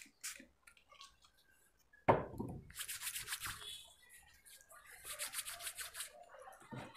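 Hands rubbing together to spread hand sanitizer, in two spells of quick, rapid strokes. About two seconds in, there is a thump as the plastic spray bottle is set down on the table.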